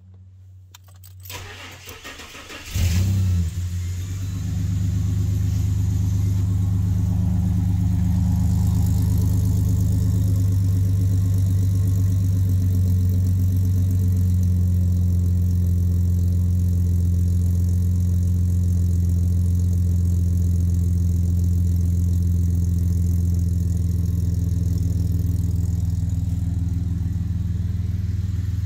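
Ford AU Falcon with extractors, no catalytic converter and a 2.5-inch single-muffler cat-back exhaust starting: a brief crank, then the engine catches with a loud flare about three seconds in and settles into a steady, deep idle.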